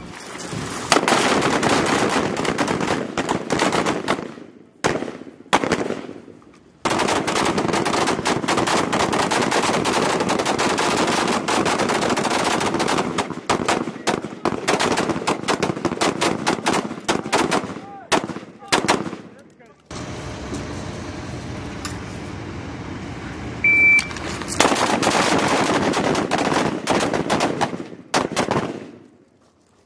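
M4 carbines (5.56 mm) firing many rapid, overlapping shots in long strings, with short pauses about 5 and 20 seconds in. A short high beep sounds about 24 seconds in.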